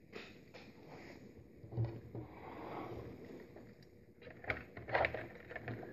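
Handling noise of a 1/6 scale Hot Toys action figure being set on its plastic display base: a few light plastic knocks and scrapes, the loudest about two seconds in and near the end.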